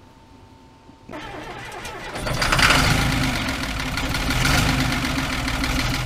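An engine cranking and starting about a second in, getting louder a second later and then running steadily.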